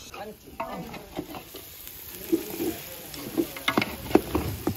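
Stirring in a cooking pan: a spoon knocking and scraping against the pan, with sharp knocks coming thicker and louder about halfway through.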